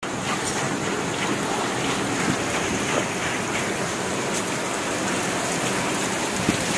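Steady rain falling on a concrete rooftop: an even hiss with a patter of drops.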